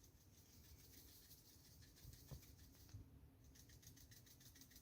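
Near silence: room tone with a few faint taps.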